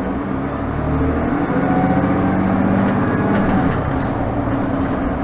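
Diesel engine of a 2017 Nova Bus LFS city bus heard from inside the passenger cabin while the bus drives along, its drone getting louder about a second in and rising slightly in pitch, then dropping back about four seconds in.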